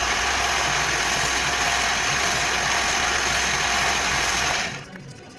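Small electric power tool grinding or sanding metal, a steady hiss-like grinding over a low motor hum. It starts abruptly and dies away about four and a half seconds in.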